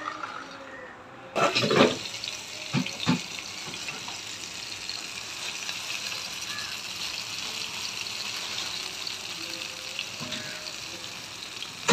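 Marinated leather jacket fish pieces sizzling steadily in hot oil in a pan. The sizzle starts abruptly about a second and a half in, with a few loud knocks and spatters over the next two seconds.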